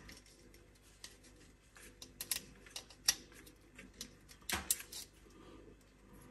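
Irregular light clicks and small plastic knocks as a nylon cable tie is threaded through a plastic switch backplate holding two push-fit pipes, with a slightly louder cluster of knocks a little past the middle.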